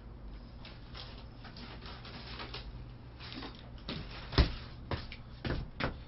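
A few sharp knocks and thumps over a steady low hum, the loudest about four seconds in, with more following in quick succession near the end.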